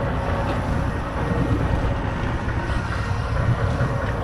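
Boat engine running steadily under way, with wind and water noise.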